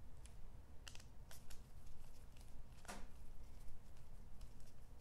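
Faint light clicks and ticks of a precision screwdriver backing tiny screws out of a DJI Mavic Pro gimbal's top plate, scattered irregularly, with one louder one about three seconds in.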